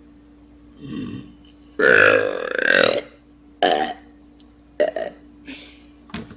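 A girl belching on purpose: a short burp about a second in, then one long, loud, low-pitched burp lasting about a second, followed by a few shorter sounds.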